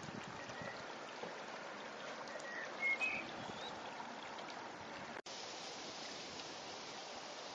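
Floodwater flowing steadily along a flooded ditch and across a path, an even rushing noise. A few short high chirps sound about three seconds in, and the sound cuts out for an instant about five seconds in.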